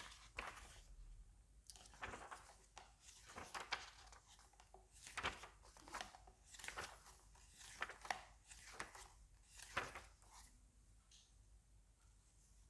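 Pages of a book being leafed through and turned by hand: a series of soft, short paper rustles that thin out near the end.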